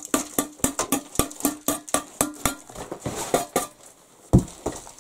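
A metal tool knocking rapidly against old brick and mortar, about four or five strikes a second, each hit ringing briefly, as old brickwork is chipped out of a stove's firebox. The tapping thins out after about two and a half seconds, with a single heavier knock near the end.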